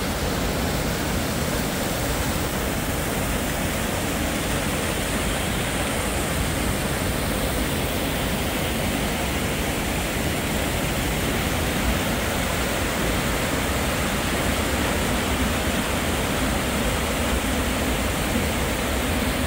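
Steady rush of a fast-flowing stream pouring over a small waterfall and rapids.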